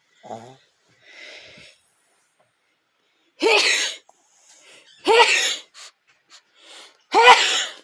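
A person sneezing three times in a row, about two seconds apart, each sneeze a short, loud voiced burst.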